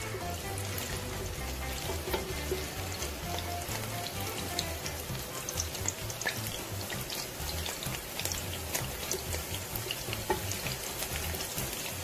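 Chopped onion frying in hot oil in a pan: a steady sizzle with many small crackles. The onion is being fried toward golden brown.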